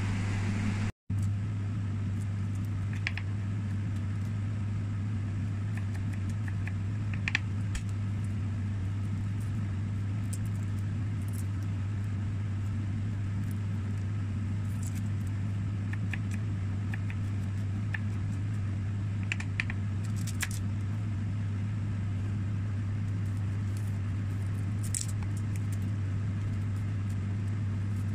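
A steady low hum runs throughout, with faint scattered clicks and light rustles of garlic and onion being peeled by hand with a small knife over a plastic cutting board.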